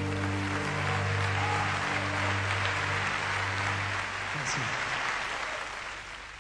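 Audience applauding at the end of a song while the last keyboard chord rings on and dies away about halfway through; the applause then fades out near the end.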